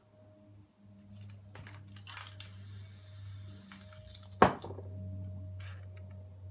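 Aerosol spray paint can hissing: a few short spurts, then one steady spray of about a second and a half. A sharp knock follows, the loudest sound, with a low steady hum underneath.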